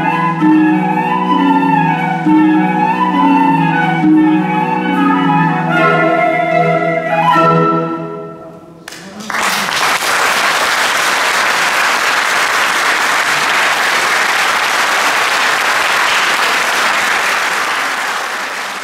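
Flute and concert harp playing the closing bars of a piece, the harp repeating low notes under the flute's melody, dying away about eight seconds in. Then audience applause, steady until near the end.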